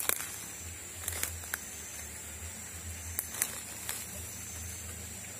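Footsteps and rustling through dry leaf litter and undergrowth, with a few scattered crackles of twigs and leaves, over a steady high-pitched drone in the background.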